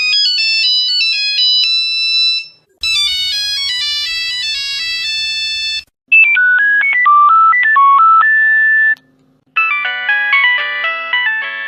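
Nokia mobile phone ringtones played one after another: four short electronic melodies of about three seconds each, each a different tune and timbre, separated by brief gaps.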